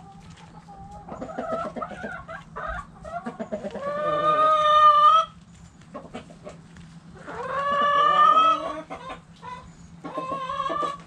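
Backyard chickens clucking in the coop, with two long drawn-out calls, one about three seconds in and one about seven seconds in, that rise slightly in pitch and stop abruptly.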